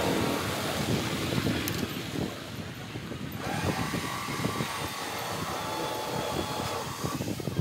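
A steady, engine-like mechanical drone in the background.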